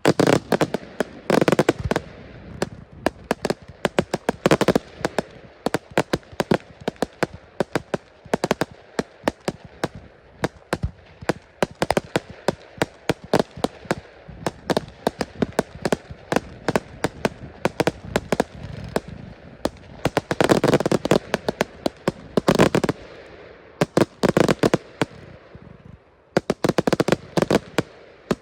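Fireworks display: a fast, continuous string of sharp bangs and crackles, swelling into denser, louder barrages about a second in, around the middle of the second half, and again near the end.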